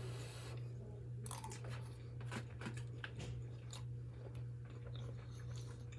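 A person chewing a mouthful of food close to the microphone, with many small irregular mouth clicks.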